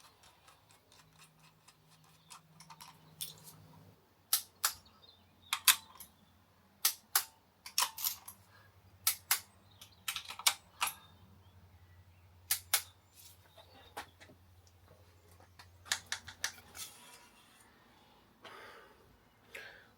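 Irregular sharp metallic clicks and clinks of hand tools, often in quick pairs, over a faint steady low hum.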